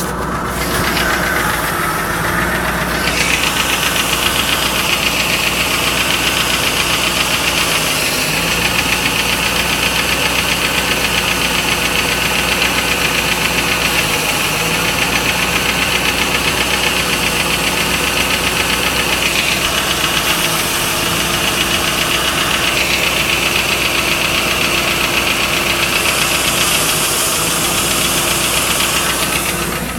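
Ford 4.6 DOHC V8 of a 1995 Lincoln Mark VIII running steadily with a fast, even tapping or knocking from the engine. The owner can't tell whether it is lash adjusters tapping or piston slap or rod knock.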